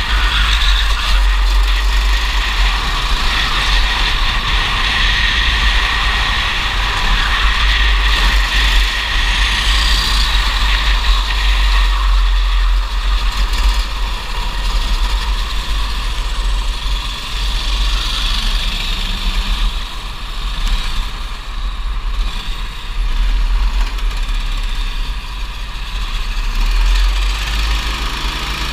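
Racing kart engine running continuously at speed, heard from a camera mounted on the kart, with a heavy steady low rumble of wind on the microphone.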